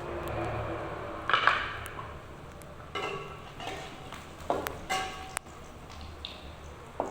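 Kitchenware being handled: a brief scrape a little over a second in, then several sharp clinks of utensils against dishes or pots, some with a short ring.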